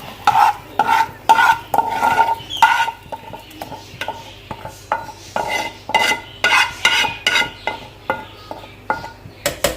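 Metal spoon scraping and knocking against a metal cooking pot: many quick, irregular clinks, some with a short ringing note, as the fried masala is scraped in and stirred.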